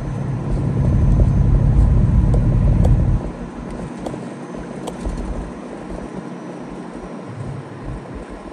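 Engine and road noise heard inside the cab of a moving truck: a loud low rumble for about the first three seconds that then drops to a quieter steady drone, with a few light ticks above it.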